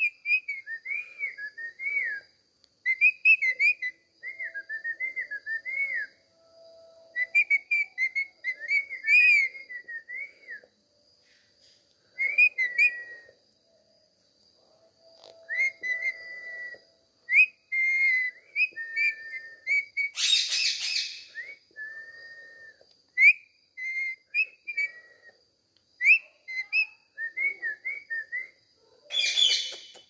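Indian ringneck parakeet giving soft warbling chatter and short whistled notes in phrases while its head is scratched, with two short harsh noisy bursts, one about two-thirds of the way through and one near the end.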